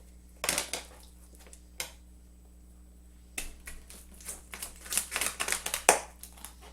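Kitchen knife cracking and crunching through the breastbone and cartilage of a raw whole chicken as the breast is split down the center. A few crisp cracks early on, then a quick run of crackling about five seconds in, ending in one sharp crack, the loudest of all.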